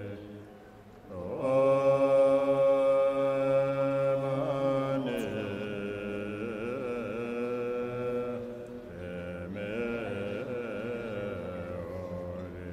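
Chanting voice holding long notes that waver in pitch at times, over a low steady drone. A louder phrase begins about a second and a half in.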